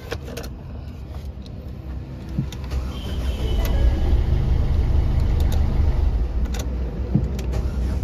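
Ford EcoSport diesel engine started about three seconds in, then running with a heavy low rumble. The mechanic calls it a loud 'thak thak' engine noise, which he traces to a missing valve, misfiring cylinders and a seized piston.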